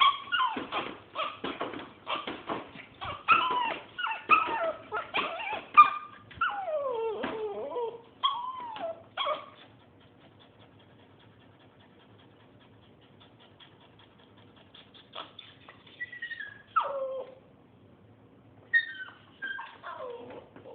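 A dog yipping in a fast run of short, high yelps, then whining in long cries that fall in pitch. After a pause of several seconds it gives more falling whines twice near the end.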